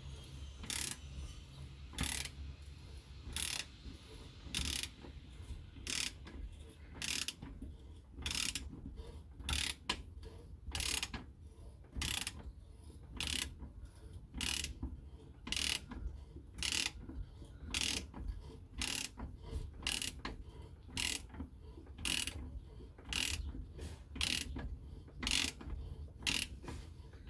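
Hand ratchet wrench clicking once on each return stroke, slow and even at a little more than one click a second, as it works a rusted bolt out with a bolt extractor.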